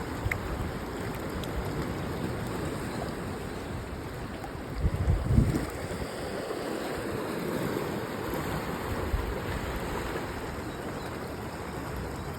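Ocean surf washing steadily along a rocky shore, with wind on the microphone; a louder low surge about five seconds in.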